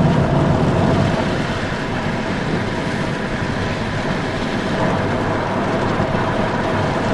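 A car driving along a highway, heard from inside the cabin: steady road and engine noise.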